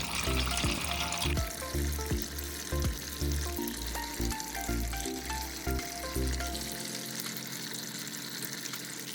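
Water trickling steadily from a pump-fed terracotta-saucer tabletop fountain, under background music with a bass beat that gives way to held notes near the end.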